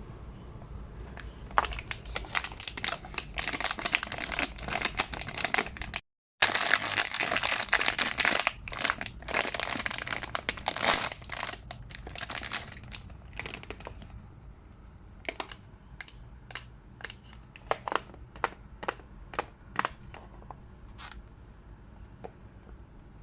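Packaging crinkling and tearing as a collectible blind box is unwrapped, dense and crackly through the first half. After that comes a run of separate light clicks and taps.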